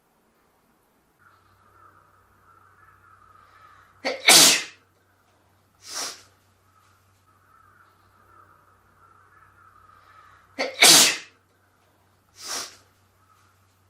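A person sneezing twice, about seven seconds apart. Before each sneeze there are a few seconds of faint breathy build-up that grows louder, and about a second and a half after each comes a shorter, quieter breathy burst.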